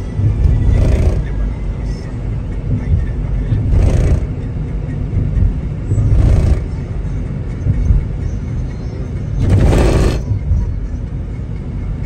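Steady low road and engine rumble inside a moving car, with four brief rushing whooshes, the longest about ten seconds in.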